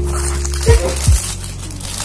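Lofi hip-hop background music: a held bass note under steady tones, with two deep drum hits in the second half.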